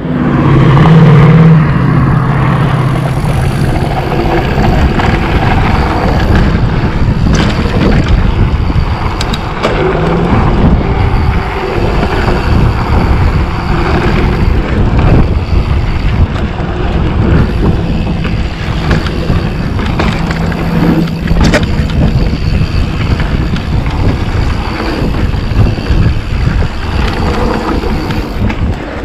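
Mountain bike rolling fast down a dirt trail: loud wind buffeting on the bike-mounted camera's microphone over the rumble of knobby tyres on packed dirt, with frequent small knocks and rattles from the bike over bumps.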